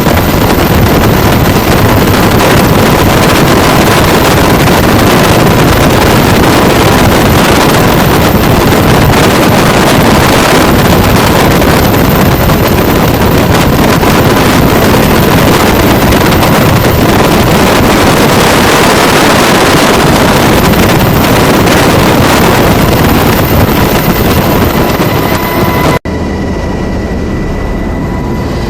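UH-60 Black Hawk helicopter at close range: loud twin-turbine and rotor noise, with rotor wash buffeting the microphone. Near the end it cuts abruptly to a quieter helicopter sound with a steady high whine.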